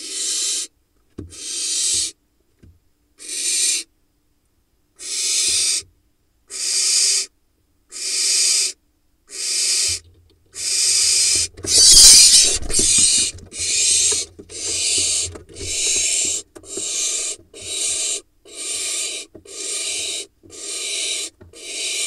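Barn owl nestling's rasping begging hisses, repeated about every second and a half at first and close to once a second later on. Around the middle comes a louder scuffle with a low rumble and wingbeats as an adult lands in the nest box with prey.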